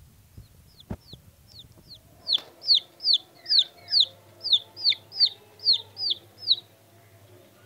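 Aseel chicks peeping: a run of short, high peeps that each slide downward in pitch, faint at first, then loud from about two seconds in at roughly two or three a second, stopping shortly before the end. A single sharp click about a second in.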